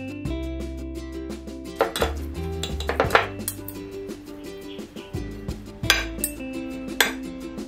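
Two metal forks scraping through cooked chicken and clinking against a glass baking dish as the meat is shredded, with several sharp clinks.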